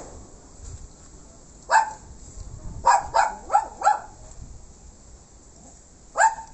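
A dog barking: a single bark, then a run of four quick barks about a second later, and one more bark near the end.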